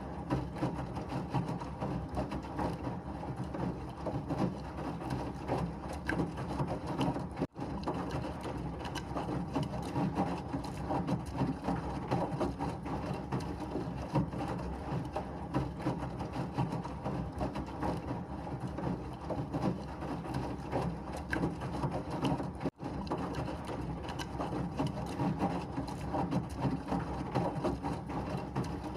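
Washing machine running steadily, a dense churning noise with fine clicking and rattling throughout, used as white noise. The sound cuts out for an instant twice, about a third of the way in and again near the end.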